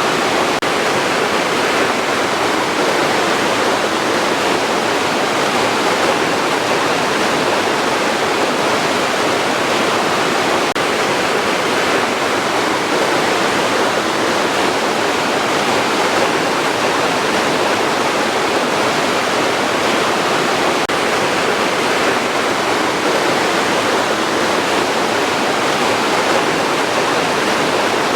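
Rushing water, a steady, even hiss with no breaks or changes.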